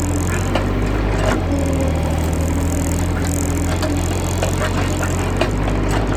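Excavator's diesel engine running steadily, with a faintly shifting hydraulic tone and scattered knocks and rattles.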